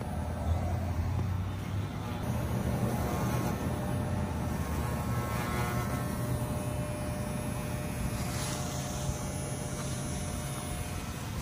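Corded electric dog clippers buzzing steadily as they are run through a dog's long, shaggy coat.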